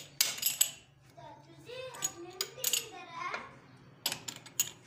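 Sharp steel clanks and clicks of a chuck key being turned in a lathe chuck as a casting is clamped on a fixture, a cluster of knocks at the start and again near the end. A child's voice is heard in the background in between.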